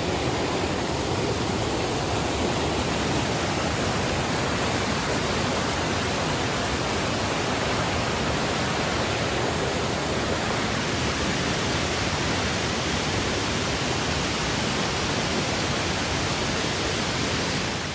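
Bertha Falls, a mountain waterfall, rushing close by: a loud, steady wash of falling water.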